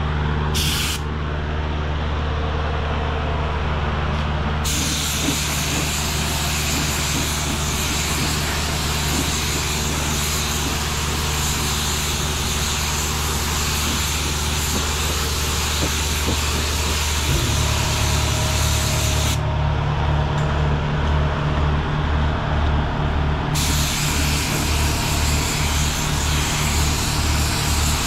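Paint spray gun hissing as a coat of satin black is sprayed. The hiss starts about four seconds in, stops for about four seconds past the middle, then starts again. Under it runs a steady low machine hum, which turns into a regular pulsing throb about seventeen seconds in.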